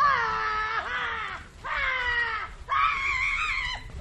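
An animal calling four times, each cry about a second long, held steady and then dropping in pitch at the end.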